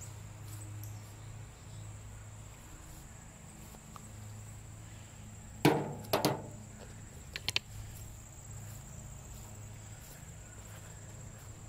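Steady, high-pitched insect drone, like crickets in the trees. About halfway through come a few sharp knocks, the first the loudest.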